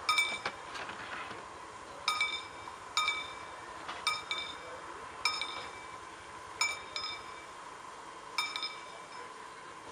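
Sharp metallic clinks, metal striking metal, about ten of them at uneven intervals of roughly one a second, each ringing briefly, around a steam locomotive standing at the platform. Under them runs a faint steady high hum.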